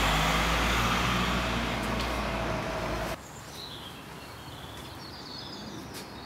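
A loud, steady noise with a low hum cuts off suddenly about three seconds in. After that, quieter outdoor background with birds chirping.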